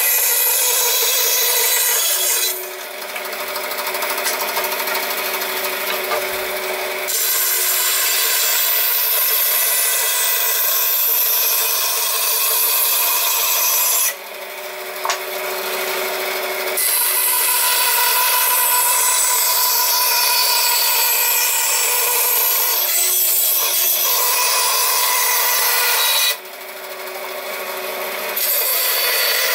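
A power tool working wood, running steadily with a rasping, rubbing sound. It eases off briefly three times and then picks up again.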